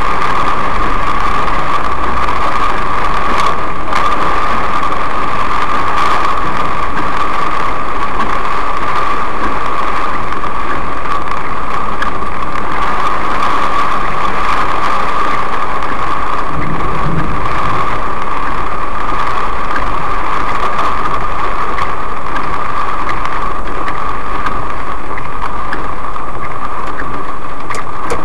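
Heavy cloudburst rain beating steadily on a moving car's roof and windshield, heard from inside the cabin along with the car's engine and road noise. A brief low rumble comes a little past the middle.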